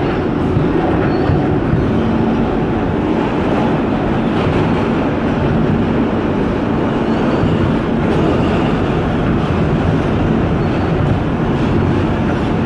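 R160B Siemens subway car running at speed through a tunnel, heard from inside the car: a steady, loud rumble of wheels and motors with a faint steady low hum.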